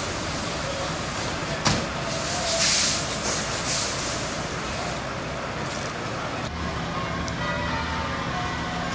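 Heavy lorry diesel engines running steadily. About two seconds in there is a sharp knock, followed by short bursts of hissing up to about four seconds in.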